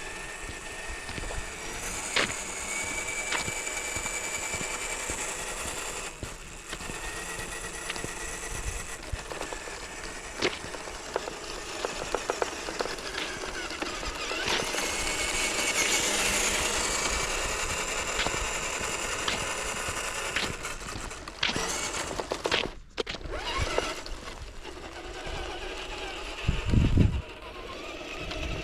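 Radio-controlled scale crawler truck driving over rough ground, its small electric motor and gears whining and rising and falling in pitch with the throttle, with ticks and clicks from the drivetrain and terrain, and a heavy thump near the end.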